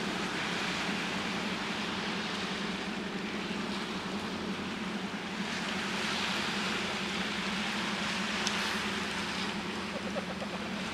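Steady low drone of ship engines from vessels underway in the channel, over a hiss of wind and waves. The hiss swells for a few seconds past the middle, and a single sharp click comes near the end.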